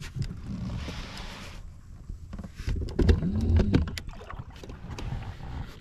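Knocks and handling noise on an inflatable boat as the anglers move on it, with a hiss-like swish about a second in and a louder low, resonant knock-and-rumble about three seconds in.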